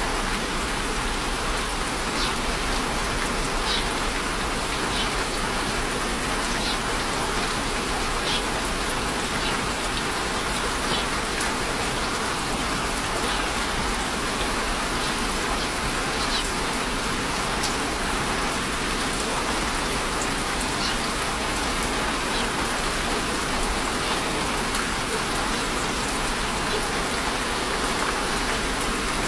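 Steady rain falling, an even hiss with occasional single drop ticks standing out.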